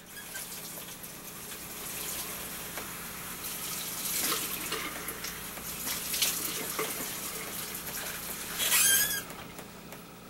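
Bathroom sink tap running, with water splashing at the basin as someone washes. Near the end there is a brief, louder squeal, and then the running water stops.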